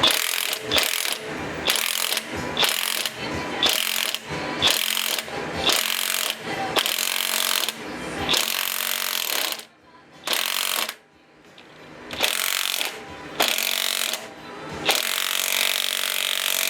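Hand ratchet wrench being worked on an engine bolt in quick back-and-forth strokes, about two a second, with a couple of brief pauses about two-thirds of the way through.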